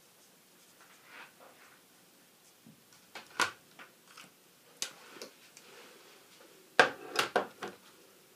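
Coloring markers being handled: a scattering of short plastic clicks and taps as caps are pulled off or snapped on and markers are set down on the desk. The loudest, a quick run of three or four clicks, comes near the end.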